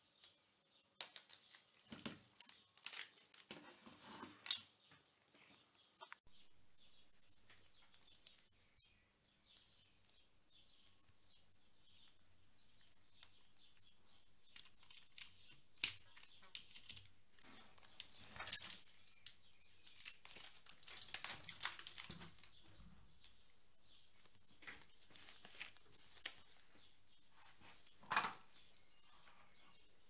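Scattered small plastic clicks, taps and scrapes as a mechanical keyboard's keycaps and Cherry MX switch parts are pried out and handled with tweezers and gloved fingers. The clicks come in uneven clusters, with a few sharper ones standing out.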